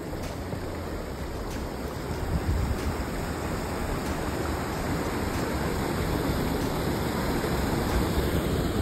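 Shallow river current rushing steadily over rocks, a continuous rushing noise.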